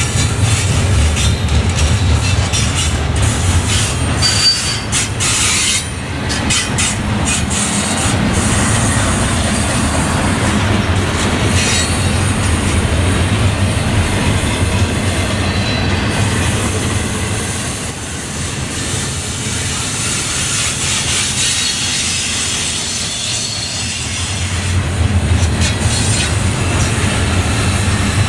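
Double-stack container well cars of a freight train rolling past, wheels rumbling on the rails, with a thin high-pitched wheel squeal through the middle stretch. Near the end the low rumble swells as a mid-train diesel locomotive draws near.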